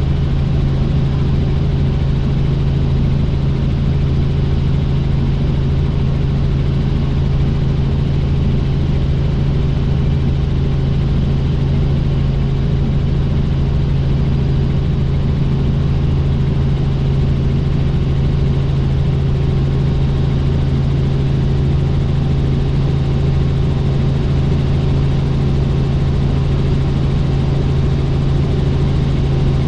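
Helicopter in flight: a steady, unchanging drone of engine and rotor, with a strong low hum.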